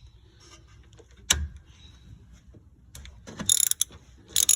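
Ratchet wrench clicking in short quick bursts as a 12 mm bolt on the rear strut's brake line bracket is turned out, after a single sharp knock about a second in.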